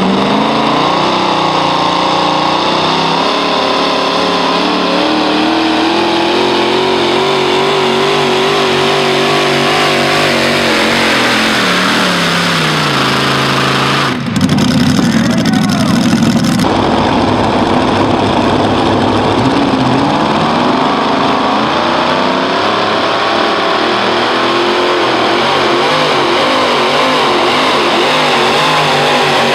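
Modified pulling tractors' engines running at full throttle while dragging a weight-transfer sled. The pitch climbs in the first few seconds, holds, then winds down around twelve seconds in. An abrupt change near fourteen seconds brings a deeper roar, and then another engine runs hard to the end.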